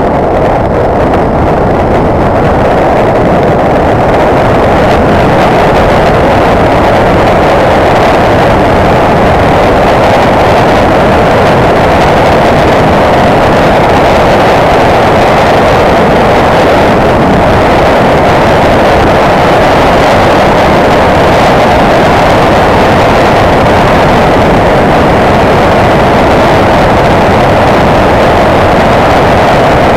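Motorcycle underway on the road: a loud, steady rush of engine and wind noise.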